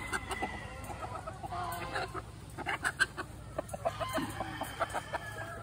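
Chickens clucking: many short clucks and calls overlapping one another.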